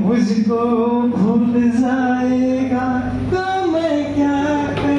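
A man singing a slow song, holding long notes that step from one pitch to the next, with a few claps starting near the end.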